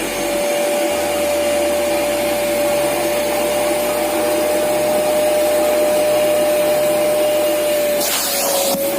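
Agaro Ace 1600-watt wet and dry vacuum cleaner running with the crevice nozzle fitted: a steady rush of air with a single steady whine over it. About eight seconds in, the rushing gets louder and the whine drops slightly in pitch.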